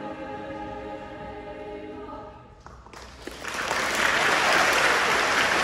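A choir holds the last sustained note of a song, which fades out about two and a half seconds in. Then a large crowd breaks into applause, which is the loudest sound here.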